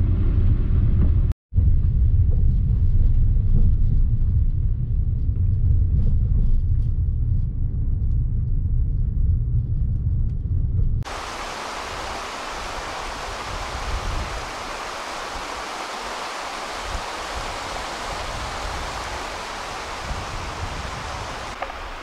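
Low rumble of a car driving, heard from inside the cabin, with a brief dropout about a second and a half in. About halfway through it cuts abruptly to the steady hiss of a stream rushing past.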